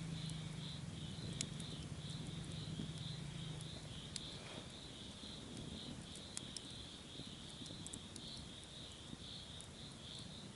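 Forest ambience: a steady, high-pitched, pulsing chirring with scattered faint clicks. A low hum stops about three and a half seconds in.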